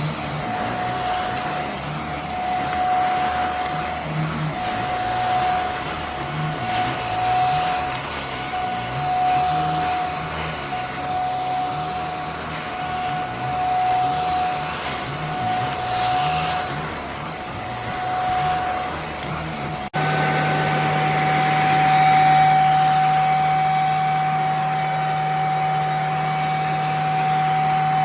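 Handheld mattress vacuum cleaner running with a steady motor whine and a rush of air. The low hum wavers for most of the stretch. About 20 s in, the sound cuts abruptly to a steadier, slightly louder run.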